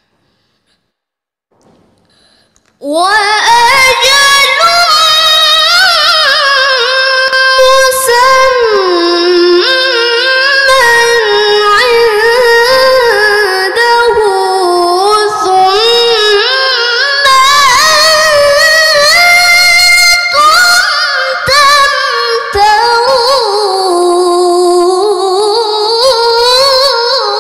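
A young woman chanting Quran recitation (tilawah) unaccompanied. After about three seconds of near silence she holds one long melodic phrase, the pitch gliding and wavering up and down in ornamented runs, and the voice tapers off near the end.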